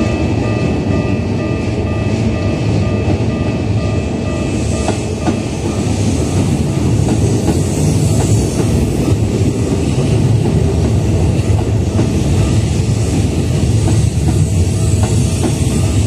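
Japanese level-crossing warning bell ringing with a steady repeating tone as a Keikyu 600 series electric train, two coupled sets, runs through the crossing. The train's rumble builds about four to five seconds in, with wheels clicking over rail joints.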